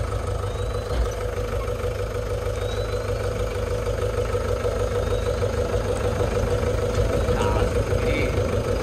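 Engine of a pickup truck running steadily as it drives slowly along a rough track, a constant low rumble with a steady hum above it.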